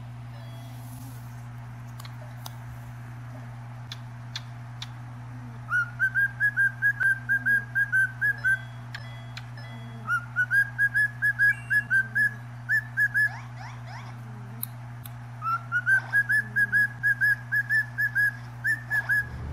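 Cockatiel whistling: three runs of quick, repeated short notes on one pitch, over a steady low hum.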